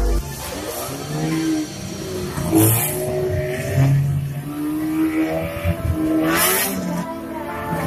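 Engines of several old demolition-derby cars revving up and down as they manoeuvre, their pitch rising and falling. Two short noisy bursts, one about a third of the way through and one near the end.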